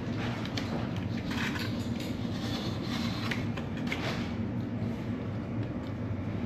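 Scattered light clicks and rustles of PC parts and cables being handled, over a steady low hum.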